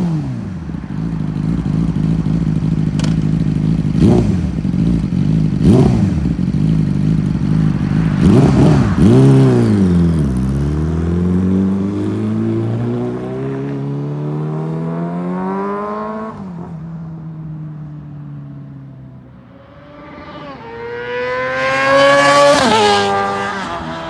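Yamaha R6 inline-four through a carbon aftermarket exhaust: idling with quick throttle blips, then a rev and pull-away, the pitch climbing as it accelerates and fading into the distance. Near the end a high-revving motorcycle comes past, getting louder and rising in pitch, then dropping in pitch as it goes by.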